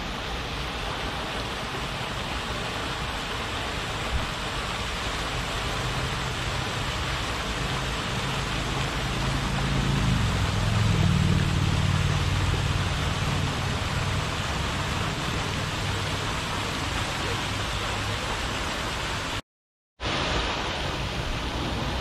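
Lake fountain's water jets falling back onto the lake: a steady hiss of spray and splashing. A low motor hum swells in the middle and fades, and the sound drops out for about half a second near the end.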